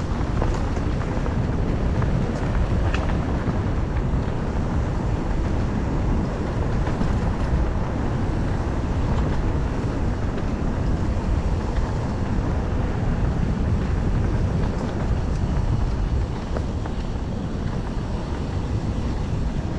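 Steady low rumble with wind buffeting the microphone, as when moving fast, and a few faint clicks.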